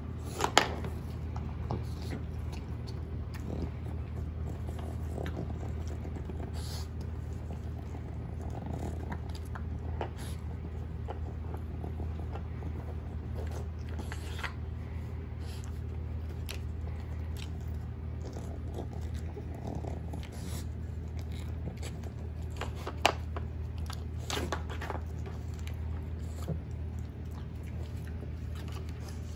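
Boston Terrier puppy working an Outward Hound Nina Ottosson Level 1 plastic treat puzzle: scattered clicks and knocks as it nudges and lifts the plastic bone-shaped blocks, with chewing of the treats. The sharpest click comes a little over twenty seconds in, with a few more just after.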